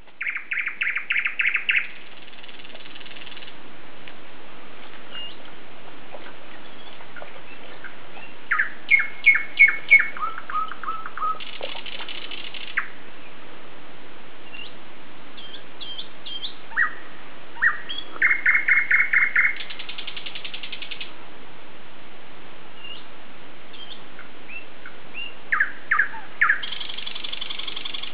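Songbirds singing: short trilled phrases and runs of quick repeated notes, one stepping down in pitch, come every few seconds over a steady hiss.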